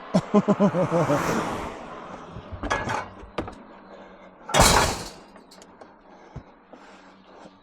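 Scrap being forced into a fully loaded van: a wavering squeal and scraping as it is shoved in, a few knocks, then one loud metal clunk about four and a half seconds in.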